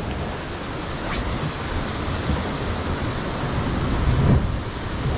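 Ocean surf breaking and washing against the foot of a rocky cliff, a steady rushing with wind buffeting the microphone.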